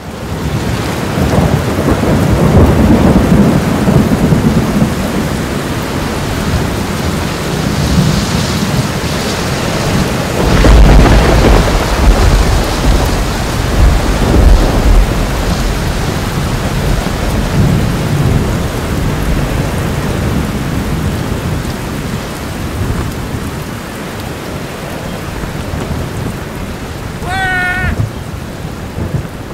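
Wind buffeting the microphone of a camera carried while skiing: a loud, uneven rush of noise, heaviest about a third of the way in.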